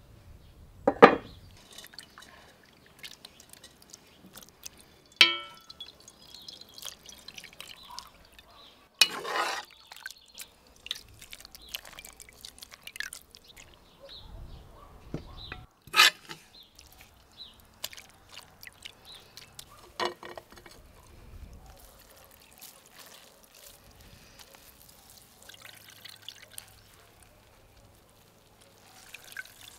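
Dandelion-flower infusion dripping and trickling through a metal sieve into a clay bowl as a cheesecloth bag of flowers is held and squeezed over it. A few sharp knocks come in between; one, about five seconds in, rings briefly like a cast-iron pot lid being set down.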